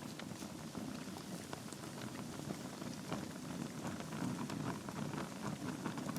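Wood fire burning in a fireplace: a steady low rush of flame with frequent small crackles and pops from the logs.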